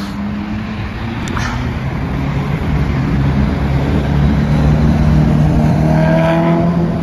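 Motor vehicle engine droning steadily and growing louder, over a low rumble.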